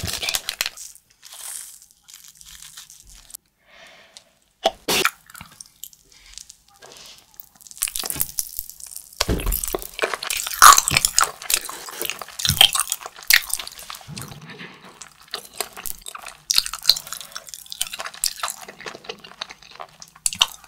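Handling and small crackles at first, then from about eight seconds in, close crunching and chewing of thin hard-candy sheets bitten off a stick, with many sharp crackles.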